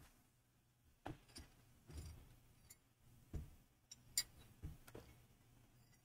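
Near silence in a small room: a faint steady hum with a handful of short, faint clicks and taps scattered irregularly through it.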